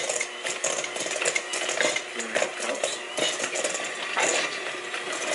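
Electric hand mixer running, its beaters clattering and clinking against a stainless steel mixing bowl as it beats cookie dough.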